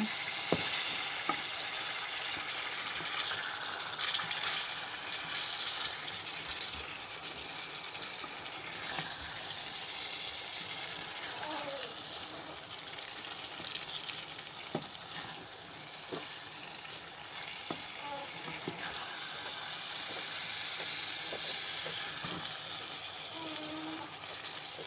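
Boal fish pieces and flat beans sizzling in hot spiced masala in a metal pot, stirred with a wooden spoon that knocks against the pot now and then.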